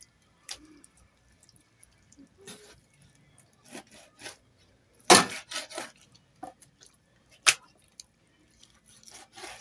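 Kitchen knife knocking and tapping on a cutting board while deboning chicken thighs: scattered light taps, a quick run of sharper knocks about five seconds in, and one more sharp knock a couple of seconds later.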